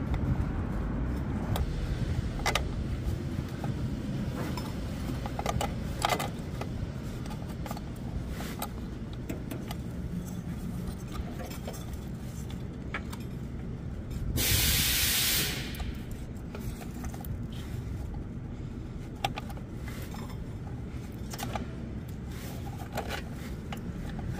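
A small engine runs steadily under light clicks and knocks of work, and a little past halfway a loud spray hiss lasts about a second and a half.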